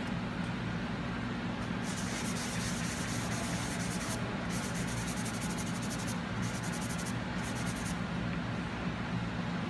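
Sandpaper rubbing in circles on a forged iron door's painted surface, a steady scratchy hiss with runs of quick strokes, over a constant low hum.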